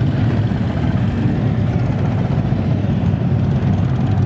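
Steady low rumble of vehicle engines, with no single event standing out.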